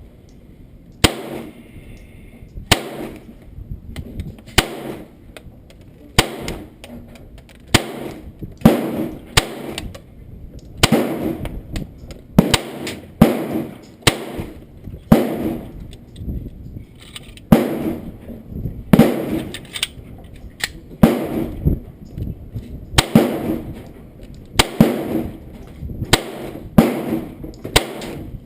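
GSG 1911 .22 LR semi-automatic pistol firing a long string of single shots, about two dozen at an uneven pace of roughly one every half second to two seconds. Each shot is a sharp crack with a short ring-off.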